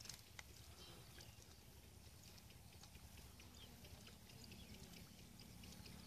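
Near silence: faint outdoor ambience with a low rumble, a couple of faint clicks about the start, and scattered faint high chirps.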